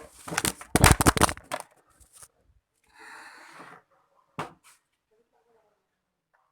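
Hard objects being handled: a quick run of sharp knocks and rattles for about a second and a half, then a short rustle about three seconds in and one more click.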